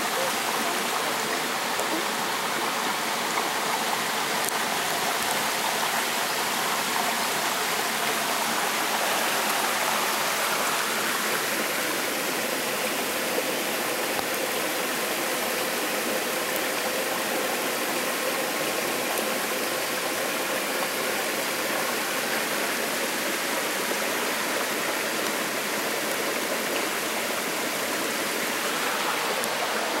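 Steady rush of water flowing over rocks in a stream.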